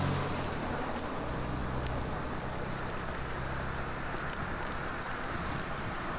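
Outdoor camcorder sound: a steady hiss of wind on the microphone under a low engine-like hum, which is strong at first and weakens after about a second. A few faint clicks come through.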